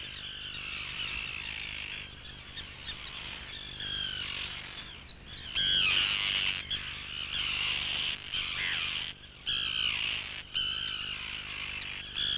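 Large mixed flock of shorebirds and seabirds calling: a dense chorus of overlapping chirps and harsh cries, loudest about halfway through.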